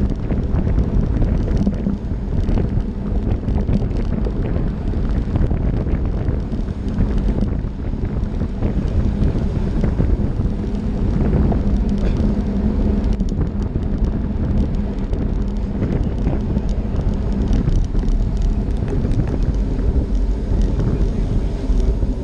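Wind rushing over the microphone of a camera on a racing bicycle riding in a bunch, with continuous road and tyre rumble and a faint steady hum underneath.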